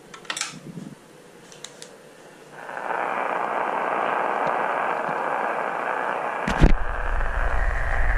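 Radio hiss: a steady band of static from a radio speaker comes up about two and a half seconds in, after a few faint clicks. About six and a half seconds in there is a sharp click and a low rumble joins the hiss.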